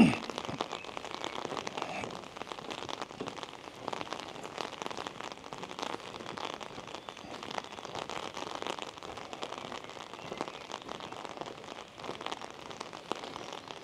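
Rain falling steadily, a dense, even patter of drops.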